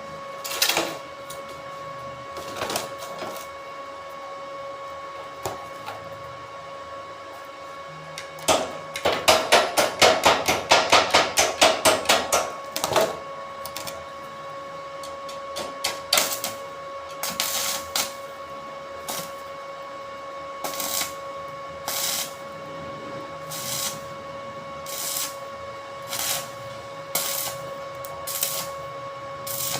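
Work noise over a steady machine hum: a fast run of sharp knocks, about five a second, from about 8 to 13 seconds in, then short rasping strokes repeated about once a second.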